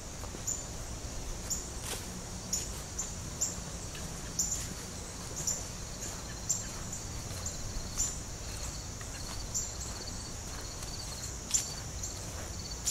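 Footsteps crunching over leaf litter and storm debris, about one a second, over a steady high buzz of insects, with a quick pulsing chirp for a few seconds after the middle.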